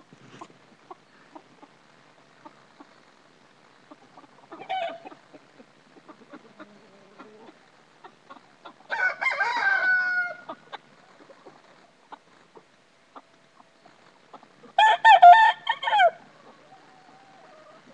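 Chickens calling: a short call, then a rooster crowing for about a second and a half, and near the end a loud, choppy run of calls.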